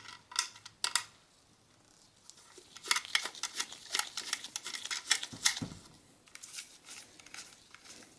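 Light clicks and ticks of a PC optical drive and its small mounting screws being handled and worked with a screwdriver, thickest in the middle, with a couple of soft thumps partway through.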